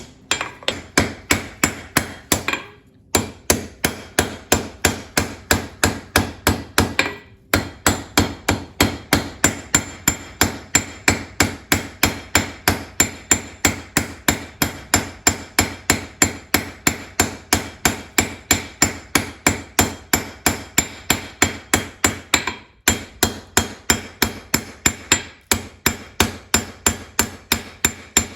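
Blacksmith's hand hammer striking a hot steel tong blank on an anvil: a steady run of ringing blows, about two to three a second, with a few short pauses, as the tong reins are drawn down.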